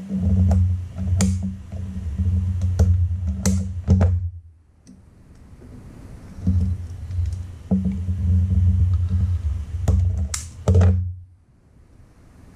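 Sharp clicks and snaps of a hand wire stripper and fingers working the end of a wire, a few to several in a row. Under them, a low steady hum comes in twice for about four seconds each time, stopping suddenly after the second.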